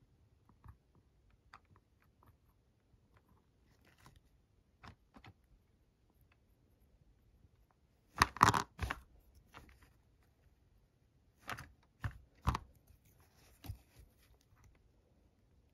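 Small plastic clicks and scrapes from handling a Lego minifigure's hip-and-legs piece and a toothpick, mostly sparse and faint, with a loud cluster of clicks about eight seconds in and a few more clicks a few seconds later.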